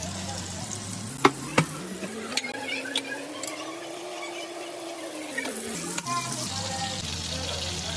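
Block of butter sizzling as it melts in a hot frying pan, with two sharp clicks a little over a second in and a few lighter ticks after.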